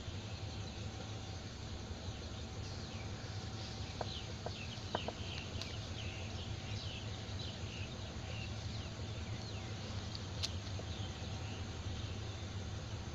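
Many quick, high, falling chirps, like small birds calling, over a steady low hum, with a few sharp clicks.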